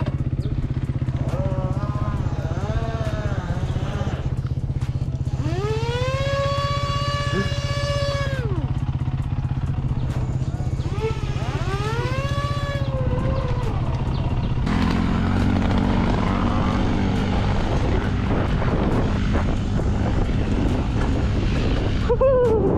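Off-road bikes riding over grass: a steady low hum throughout, and three times a motor whine that rises, holds and falls away as a bike accelerates and eases off. From about two-thirds of the way in the low sound turns rougher.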